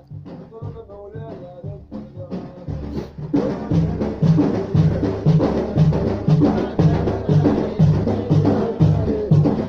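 Instrumental music without singing: a melody over bass notes, then about three seconds in the full band comes in louder with a steady drum beat of about two beats a second.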